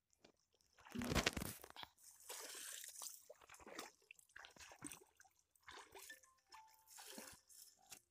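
Shallow muddy water splashing and sloshing as a fishing drag net is hauled through it by men wading, with scattered short splashes and squelches; the loudest splash comes about a second in.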